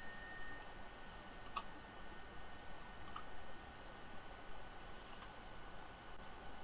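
Faint computer mouse clicks: single clicks about a second and a half and three seconds in, then a quick double click about five seconds in, over a low steady hiss.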